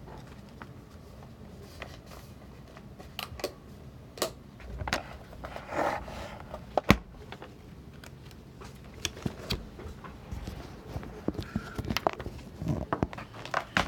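Irregular clicks and knocks with a brief rustle about six seconds in. The loudest knock comes about seven seconds in.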